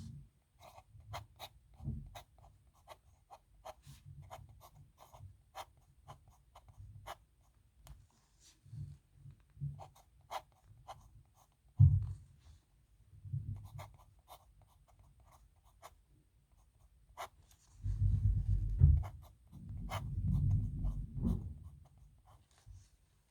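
Dip nib pen scratching across paper as characters are written: a run of short scrapes and ticks. A few dull low bumps come from the hand and paper against the desk, most of them in the last few seconds.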